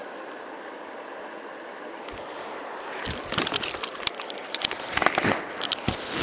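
Steady rush of river water over stones, with close-by clicks, knocks and rustles starting about two seconds in as the fish and rod are handled on the rocks.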